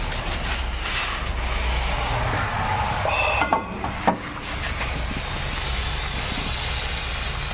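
Heavy cast-iron pot lid being handled on a grill: two short metallic knocks about three and a half and four seconds in, over a steady rushing noise.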